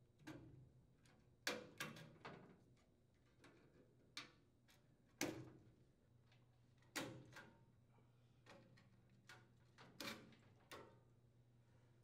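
Faint, scattered clicks and snaps of plastic wire connectors and mounting tabs as an old furnace control board is worked free of its wiring and mounting pins with needle-nose pliers. There are about ten at uneven intervals.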